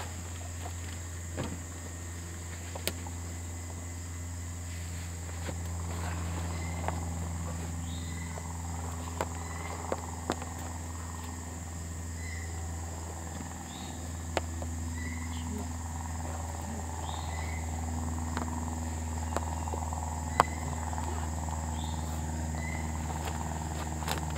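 Steady high-pitched insect chorus, crickets trilling without a break, with short chirps repeating every second or two. Scattered clicks and knocks of gear being handled at an open car, over a low steady hum.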